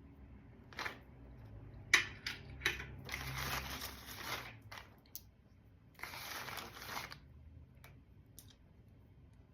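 Wrapping rustled and crinkled in two longer stretches, with several sharp clicks of rocks and crystals knocking against each other, the loudest about two seconds in.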